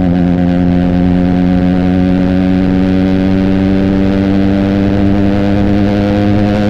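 Benelli TNT 300's parallel-twin engine through an Austin Racing aftermarket exhaust, pulling steadily in gear with the revs rising slowly.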